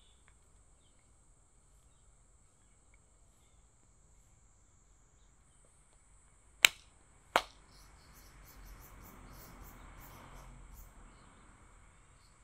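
Two sharp handclaps less than a second apart, the pair of claps given in prayer before a Shinto shrine, over a steady high drone of insects. After the claps a faint low rumble swells and fades.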